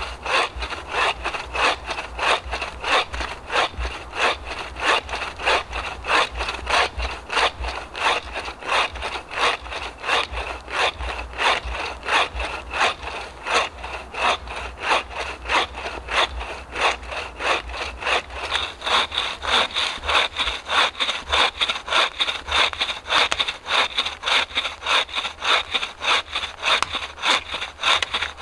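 Homemade oak folding buck saw (frame saw) with a 610 mm blade, cutting wood in steady back-and-forth strokes, about two to three a second, on its first test cut. A high ringing note rides on the strokes and steps up in pitch about two-thirds of the way through.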